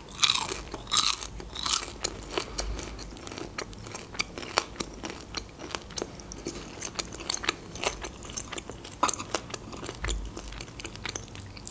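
Close-miked mouth chewing of food, with crisp crunching bites loudest in the first two seconds, then a steady patter of softer chewing clicks.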